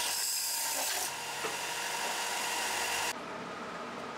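Benchtop belt and disc sander running while a 3D-printed plastic part is held against it and ground flat: a steady abrasive hiss over the motor's hum. It cuts off abruptly about three seconds in, leaving faint room noise.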